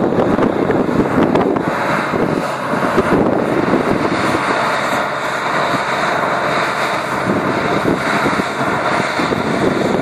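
Deutz-Fahr M 1202 E combine harvester running steadily as it cuts and threshes standing wheat, a loud continuous mechanical din.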